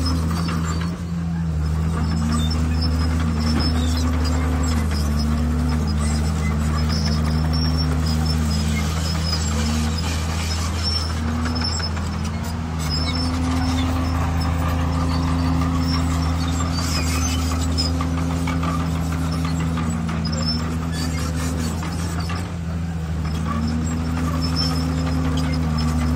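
Heavy diesel engine of earthmoving machinery running steadily. Its pitch steps up and down again and again as the engine speed rises and falls.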